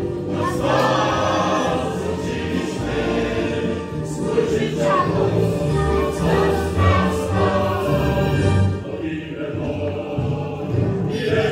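Young children singing together as a group, with instrumental backing music.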